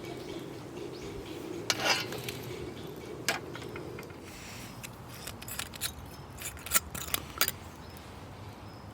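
Camp cookware and utensils being handled: a series of sharp clinks and taps of metal or glass, the loudest about two seconds in and a cluster between five and seven and a half seconds in.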